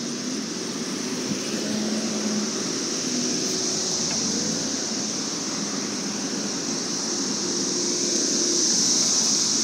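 Steady street traffic and road noise heard from a moving bicycle, with cars passing, under a constant high hiss.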